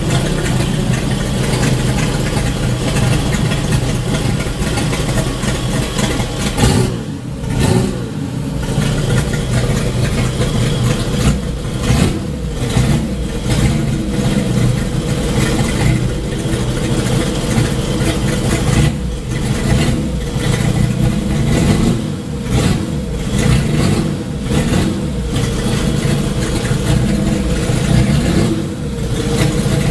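Modified Chevrolet Opala's engine idling loudly through its exhaust, with the throttle blipped several times so the revs rise and fall.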